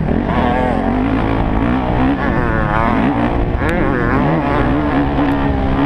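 Motocross dirt bike engine revving up and dropping back several times as the rider accelerates and shifts on a dirt track, heard close up from the rider's helmet.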